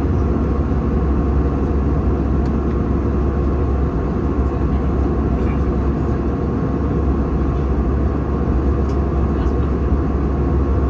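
Steady low rumble of a passenger airliner's cabin in flight, the engines and airflow heard from inside, with a faint steady tone above it.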